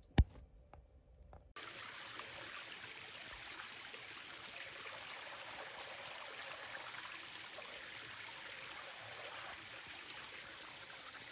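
Small rocky creek trickling and splashing over stones, a steady rush of water that starts about a second and a half in, after a short click.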